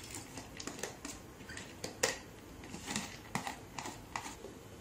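Soaked urad dal being tipped and shaken from a plastic tub into a steel mixer-grinder jar: scattered light clicks, taps and scrapes of the plastic against the steel rim, with a sharper knock about two seconds in.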